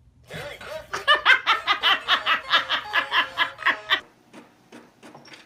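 A person laughing hard in a fast, unbroken run of laughs that stops abruptly about four seconds in, followed by a few faint ticks.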